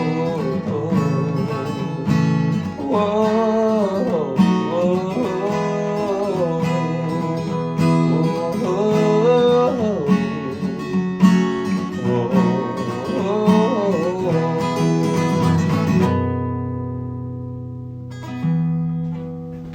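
Acoustic guitar strumming under a wordless sung melody, closing a song. About 16 seconds in the singing stops and the last chord rings out and fades.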